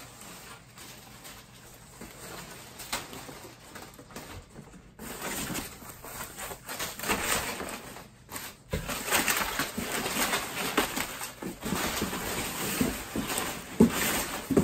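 Packing material rustling and crinkling as parts are unwrapped, in uneven fits and starts with a short pause just past halfway.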